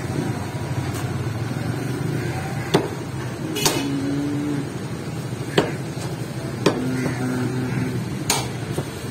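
A cleaver chopping fresh beef on a wooden stump chopping block: about five sharp, separate chops at uneven intervals, over a steady low background hum.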